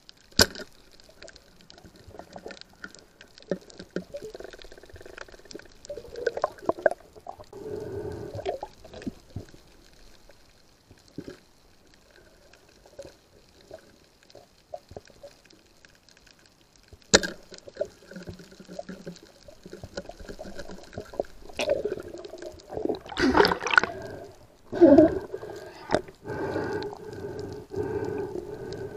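Underwater sound picked up by a camera in a waterproof housing: scattered sharp clicks and knocks with a faint watery hiss. In the last several seconds it grows louder, with a steady hum under dense knocking.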